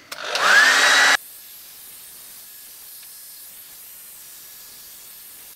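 A small handheld hairdryer (Hello Kitty) switched on and blowing: a loud rushing hiss, with the motor's whine rising as it spins up. About a second in it drops abruptly to a much quieter steady hiss with a faint whine.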